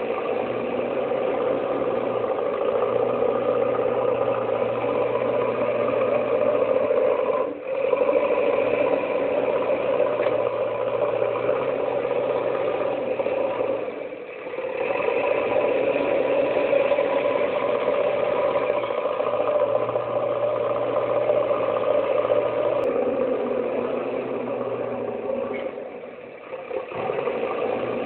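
Engine-running sound effect laid over the toy play: a steady engine hum with a light rattle, dipping briefly about three times and picking up again each time.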